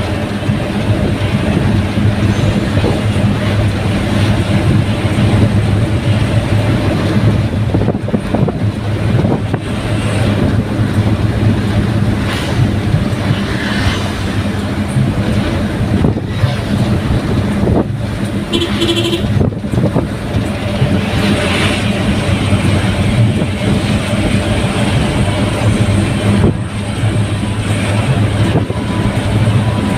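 Daihatsu Gran Max pickup on the move: a steady engine hum with road noise, heard from inside the vehicle. A short tone sounds about two-thirds of the way in.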